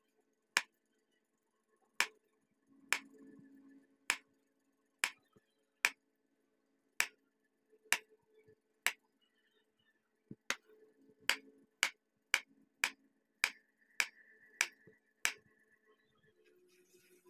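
Kitchen knife slicing peeled bananas on a wood-grain board: each cut ends in a sharp tap of the blade on the board. The taps come about once a second at first, then quicker, about two a second, in the second half.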